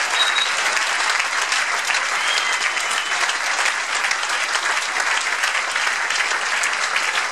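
Audience applauding, a dense, steady wash of clapping.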